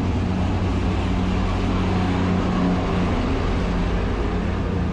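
Locomotive-hauled passenger train pulling into the station alongside the platform: a steady rumble of wheels on the rails with a low hum underneath.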